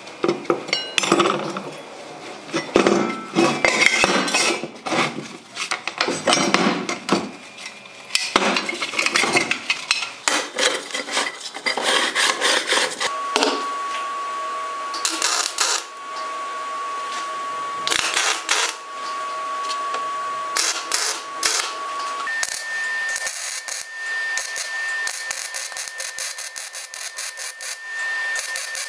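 Square steel tubing clanking and scraping on a wooden workbench, many separate knocks over the first dozen seconds. After that a steady high whine sets in, and about two-thirds of the way through a MIG welder arc starts crackling over a slightly higher steady tone.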